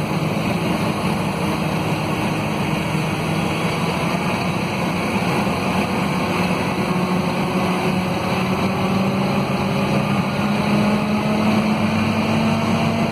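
Scania DC9 five-cylinder diesel engine of a Scania K230UB city bus running, heard inside the passenger cabin as a steady low drone. It grows a little louder and higher in pitch over the last few seconds.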